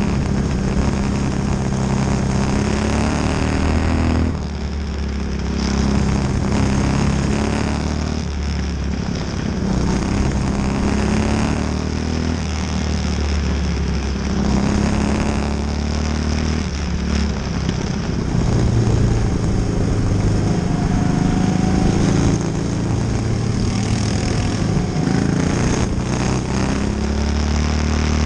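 Quarter-midget race car's small single-cylinder engine running at racing speed, heard from on board, its note dropping and picking up again every few seconds as it goes through the corners.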